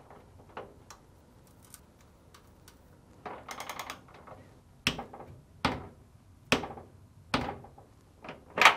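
Torque wrench and socket tightening a dryer drum bearing shaft bolt: a quick run of ratchet clicks about three seconds in, then five sharp single clicks under a second apart.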